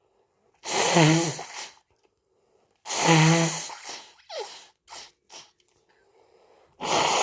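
A person sneezing hard twice, about two seconds apart, each a loud voiced burst falling in pitch. Three short breaths follow, and a third sneeze starts near the end.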